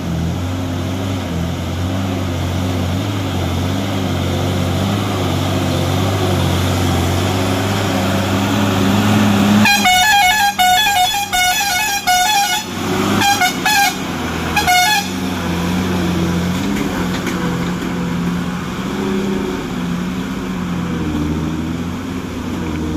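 A vehicle engine runs steadily, its pitch rising and falling as it works. About ten seconds in, a horn sounds in a quick run of honks, then a few short separate toots, before the engine is heard alone again.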